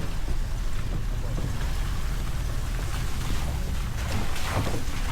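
Steady rushing noise with wind buffeting the microphone, a low fluttering rumble that holds at an even level throughout.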